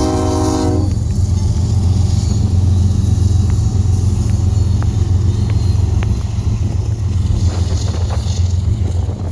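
A Union Pacific diesel locomotive's horn sounding and cutting off just under a second in, then the loud, steady low rumble of the locomotives and rail cars passing, with scattered sharp clicks and short squeaks from the wheels on the rails.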